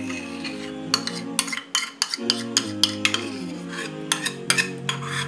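A metal spoon tapping and scraping against a bowl as it is emptied into a plastic mixing bowl, in a string of short clicks, over background music with long held notes.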